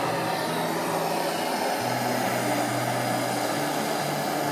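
Bernzomatic hand torch burning with a steady roar of flame as it heats lead to plug a hole in the van's steel floor.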